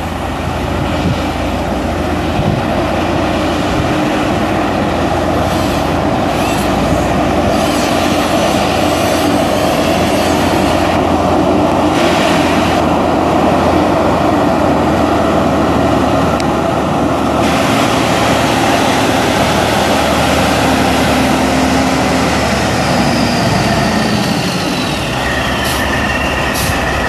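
2013 Freightliner Columbia CL120 semi tractor's Detroit Diesel Series 60 12.7 L straight-six turbo diesel running steadily as the truck drives across the yard and past. A high whine falls in pitch near the end.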